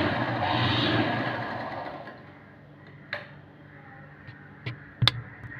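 Motor-driven sewing machine stitching at a fast steady rate, then slowing and stopping about a second and a half in. A few sharp clicks follow, the loudest near the end.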